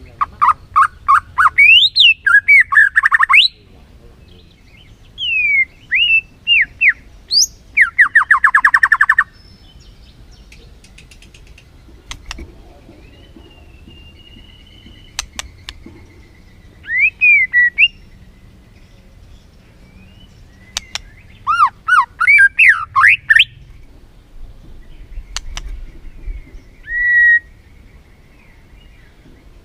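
White-rumped shama singing in loud bursts of fast, varied whistled phrases and rapid trills, with pauses of several seconds between the bursts.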